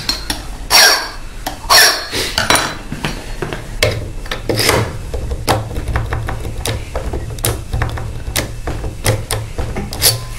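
A key blank worked in an Asec euro profile cylinder lock: a few scraping strokes in the first seconds, then many metallic clicks and rattles as the blank is twisted and wiggled against the pins to raise impression marks.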